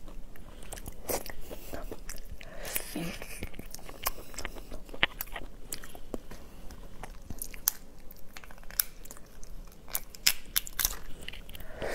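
Cooked slipper lobster shells being cracked and pulled apart by hand, a close run of sharp crackles and clicks, mixed with crunching and chewing.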